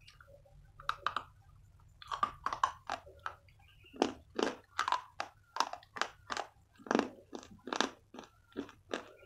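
A person biting into a block of chalk and chewing it: a couple of sharp cracks as a piece snaps off about a second in, then crunchy chewing, about three crunches a second.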